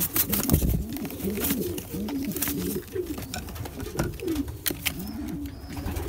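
Several racing homer pigeons cooing together in a loft, many short low overlapping coos, with scattered sharp clicks and knocks among them.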